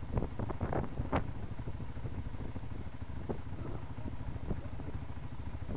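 ATV engines idling steadily, with a few light knocks and rattles in the first second or so.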